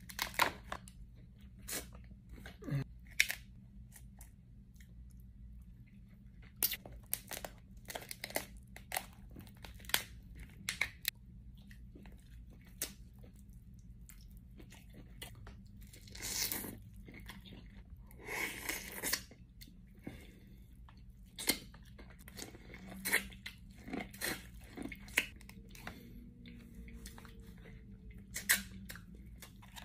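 Shellfish being eaten by hand: crab and lobster shells cracked and torn open and the meat bitten and chewed. Irregular sharp cracks and crunches, with a couple of longer, noisier stretches about two-thirds of the way in.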